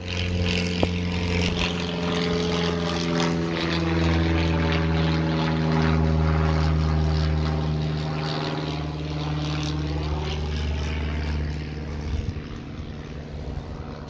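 Small propeller plane flying overhead: a steady engine drone that swells to its loudest about midway, its pitch sinking slightly as it passes.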